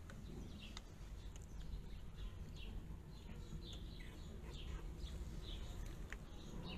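Newborn puppies squeaking: a run of short, high, falling cries, about two a second, over a faint low rumble.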